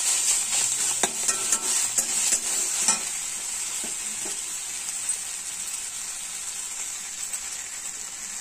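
Sunsunia greens frying in oil in an aluminium kadai, with a steady sizzle. A metal spatula scrapes and taps the pan a few times in the first three seconds, then the sizzle goes on alone, a little quieter.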